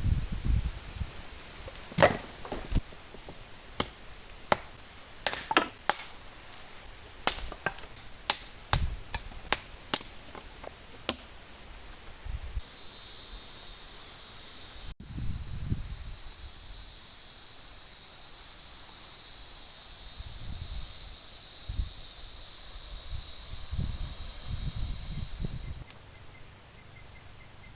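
A string of sharp knocks or snaps, about fifteen, over the first eleven seconds. Then a steady high insect buzz comes in and runs until it cuts off abruptly near the end.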